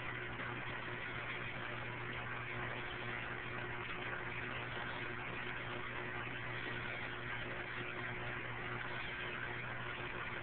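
Steady mechanical hum with an even hiss over it, from the aquarium's pump, running without change.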